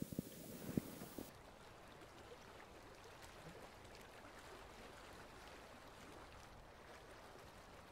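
Underwater river recording: a few muffled low knocks and water hiss for about the first second. Then a cut to near silence with only a faint hiss.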